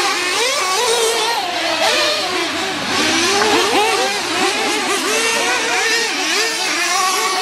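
Several petrol RC cars' small two-stroke engines revving up and easing off together, many pitches rising and falling over one another throughout.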